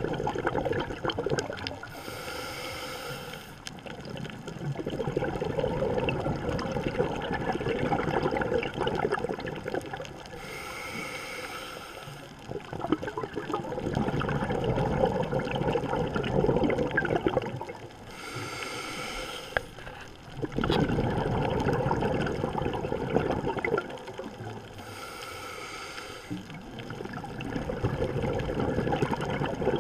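Scuba diver breathing through a regulator. Four short hissing inhalations come about every eight seconds, each followed by a long, loud bubbling exhalation.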